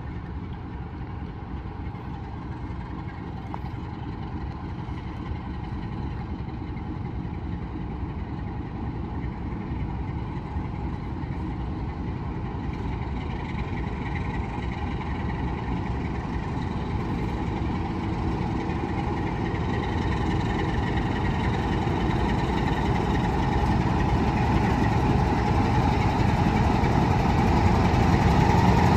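A railway locomotive drawing near slowly, its steady engine and machinery running sound growing gradually louder.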